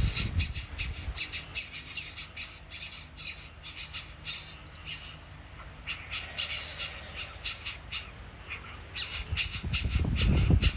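Young birds in a nest calling: rapid, short, high-pitched calls, several a second, with a brief lull partway through. A low rumble comes in near the end.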